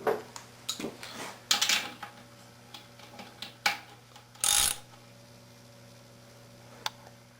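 Irregular clicks and knocks of hand tools and metal hardware being handled, over a steady low shop hum; the loudest knocks come about one and a half and four and a half seconds in.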